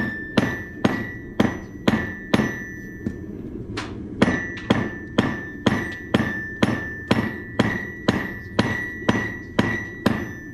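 Blacksmith's hammer forging steel on an anvil in a steady rhythm of about two ringing strikes a second, with a short pause about three seconds in. A steady low rush lies underneath.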